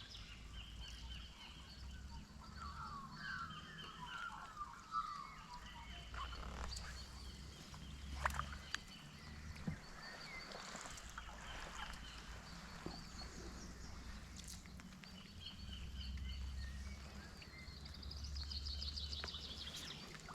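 Birds calling in the background, short high phrases repeating every second or two, over a faint low rumble, with a few light knocks.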